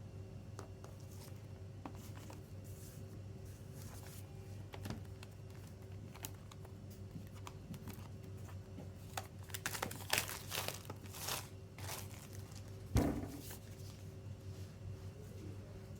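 CD album packaging being handled and opened: scattered crinkling and rustling, busiest around ten seconds in, with one sharp knock about thirteen seconds in. A faint steady hum runs underneath.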